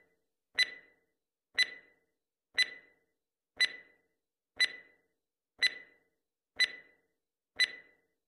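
Countdown stopwatch ticking sound effect: one sharp tick each second, eight in all, each with a brief ring and silence between.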